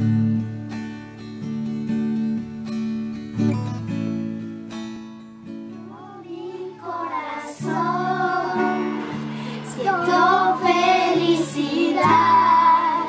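Acoustic guitar strumming steady chords on its own, then, about halfway through, a woman and a group of children begin singing a song in Spanish along with the guitar.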